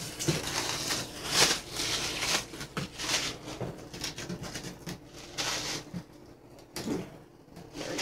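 Clear plastic protective film on a portable washing machine crinkling and rustling as it is handled and peeled, in short irregular bursts with quiet gaps.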